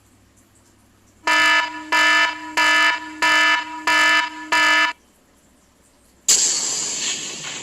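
Sound-effect samples: six electronic alarm-style beeps about 0.6 s apart, each a short buzzy tone. A couple of seconds later comes a sudden noisy hiss that fades away over about two seconds.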